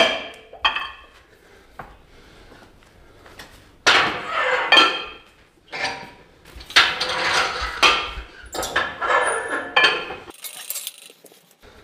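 Metal barbell weight plates clanking and clinking against the bar and each other in several separate bursts, with a short metallic ring after the louder hits.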